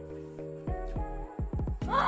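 Background music with held notes. About a third of the way in comes a run of quick falling-pitch sweeps, and a loud rushing burst starts right at the end.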